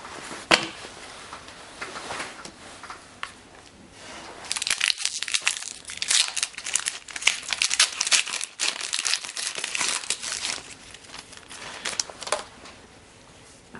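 Foil wrapper of an Upper Deck hockey card pack being torn open and crinkled. A sharp click comes about half a second in, then dense crinkling and tearing from about four seconds in until near the end.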